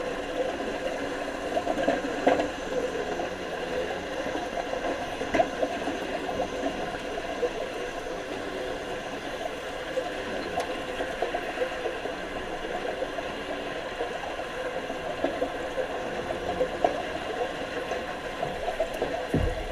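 Underwater wet welding: a steady crackle and buzz of the arc with bubbling, broken by many small irregular sharp crackles.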